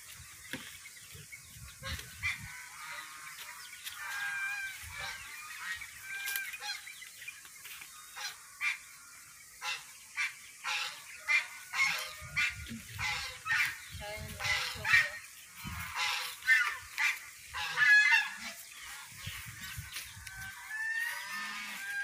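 Poultry calling: short repeated calls, a few at first, then a dense, loud run through the middle and second half.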